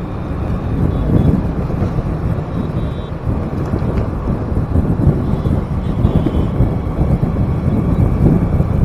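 Wind rushing over the microphone with engine and road noise, recorded from a small motorbike riding through city traffic.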